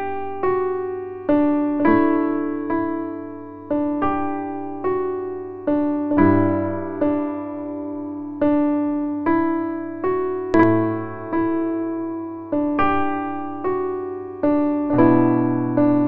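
Background music: a slow solo keyboard melody, single notes struck about once a second, each fading away.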